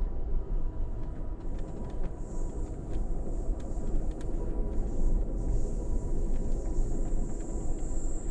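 Amtrak passenger train heard from inside the coach while rolling along the line at speed: a steady rumble of wheels on rail with occasional faint clicks and rattles.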